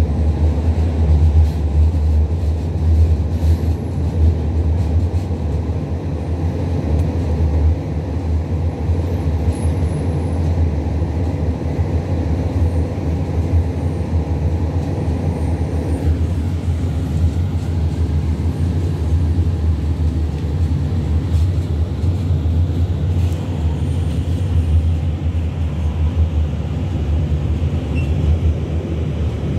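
Škoda 15T low-floor tram heard from inside while under way: a steady low rumble of wheels on rails and running gear. The higher part of the noise drops away about halfway through, leaving mostly the low rumble.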